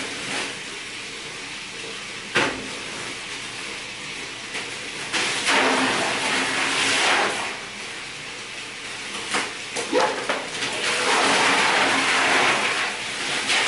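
Water running into a bathtub with a steady hiss, with a sharp knock about two seconds in and two louder stretches of splashing and churning, about five seconds in and again near the end, as ice is tipped into the cold water.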